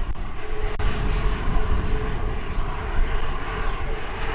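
Boeing 737-300's CFM56 turbofan engines running at low taxi power, a steady jet rumble with a faint held tone for the first couple of seconds, heavily buffeted by gusty wind on the microphone.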